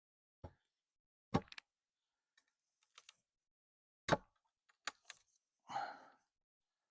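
Several sharp knocks of wood and metal as a wooden corral fence rail is forced loose from its post; the two loudest come about a second in and about four seconds in. A short rough sound follows near the end.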